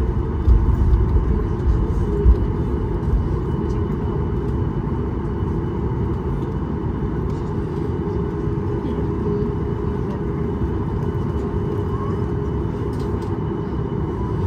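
Cabin noise inside a Boeing 737 MAX 8 taxiing after landing: the CFM LEAP-1B engines at idle and the airframe rolling make a steady low rumble with a faint high tone. The rumble is heavier and more uneven for the first couple of seconds, then settles.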